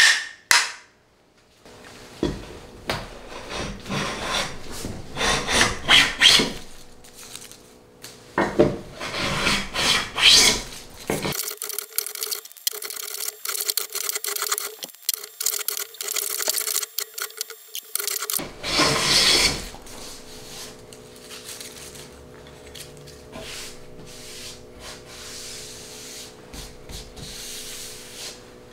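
A couple of mallet taps on a wooden hand plane, then the plane taking repeated shaving strokes along the edge of a wooden board, each a rasping swish. The strokes come in runs and grow quieter near the end.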